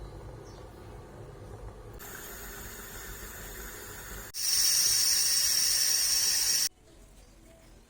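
Coffee maker running with a low hum, then a loud steady high-pitched hiss of steam or pressure from the machine starting about four seconds in and stopping abruptly about two seconds later.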